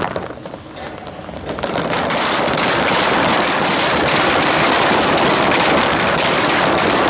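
Wire shopping cart rolling over asphalt, its wheels and metal basket giving a dense, steady rattle that builds up about two seconds in as the cart picks up speed.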